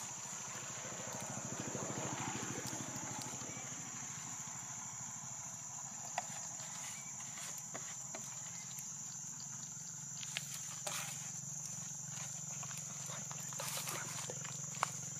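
Steady rural ambience: a constant high insect-like drone over a low pulsing hum, with a few sharp clicks and ticks scattered through, the loudest near the end.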